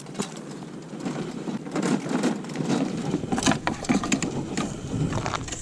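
A litter-collecting cart rattling as it is pushed over pavement: a busy, uneven clatter of small knocks.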